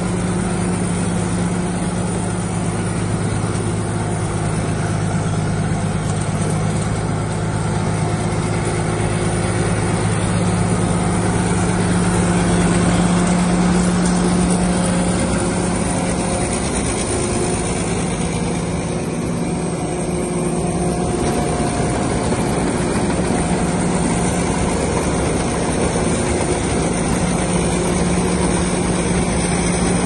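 Tracked rice combine harvester running steadily while harvesting: a constant engine drone over the even noise of its cutting and threshing machinery.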